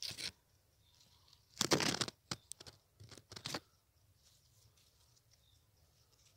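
Rustling, crinkling handling noise in a few short bursts, the loudest about a second and a half in, with a handful of sharp clicks after it, as the potted tomato plant and the phone filming it are handled.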